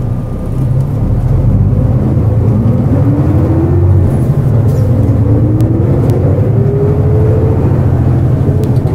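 Nissan Diesel KL-JP252NAN city bus's diesel engine pulling away and accelerating. A rising whine climbs, drops about four seconds in at a gear change, then climbs again.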